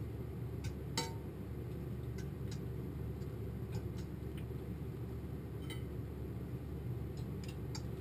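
Metal fork clinking and scraping against a skillet as cooked meat is picked off the bone: a dozen or so scattered light clicks, the sharpest about a second in, over a steady low hum.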